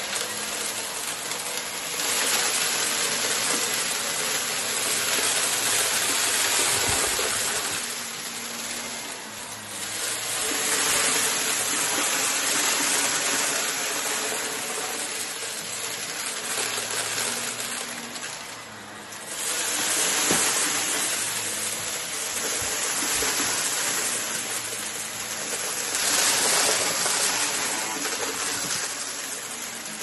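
Upright vacuum cleaner running on carpet and sucking up confetti and glitter: a loud, steady rush of air that swells and eases every few seconds as it is pushed back and forth.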